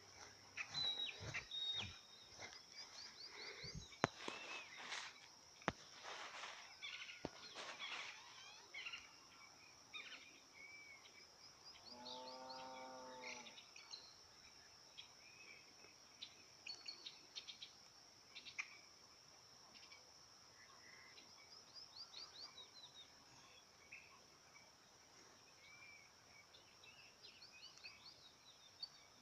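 Faint outdoor spring ambience: insects, likely crickets, trilling steadily on one high note, with scattered bird chirps. A few sharp clicks in the first several seconds, and about halfway through, a single short, pulsing animal call lower in pitch.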